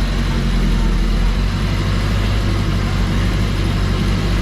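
A vehicle's engine running steadily with a low hum under a constant rush of travel noise.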